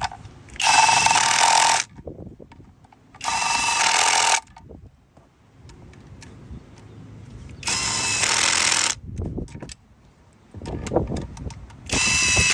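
Skil brushless 1/4-inch cordless impact driver hammering as it runs in cylinder head bolts on a GM 2.4 L engine, in four bursts of about a second each, several seconds apart.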